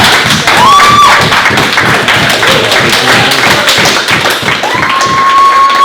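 Crowd cheering and clapping as a grappling match is won, with two long held shouts, one brief near the start and a longer one near the end.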